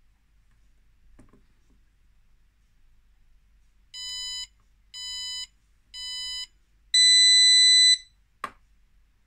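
Arduino-controlled capacitive-discharge spot welder's buzzer beeping a countdown: three short beeps a second apart, then a longer, higher and louder beep as the weld fires. Just after it comes a single sharp snap, the weld pulse through the electrodes.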